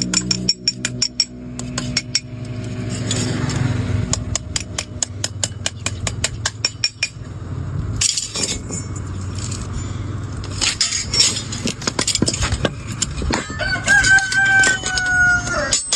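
Hand hammer tapping a sheet-iron spatula blade, quick runs of sharp metallic strikes with short pauses between them. Near the end a long, steady, high-pitched call sounds for about two seconds over the tapping.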